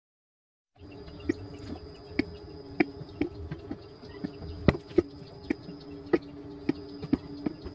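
After a brief silence, irregular sharp clicks and knocks of PVC pipe and fittings being handled and brushed with solvent cement, over a steady low hum with a faint high whine.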